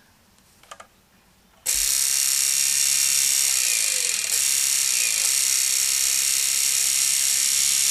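Electric motor switched on after a second and a half of quiet, now turning in its reversed direction and running with a steady, loud, hissy whir.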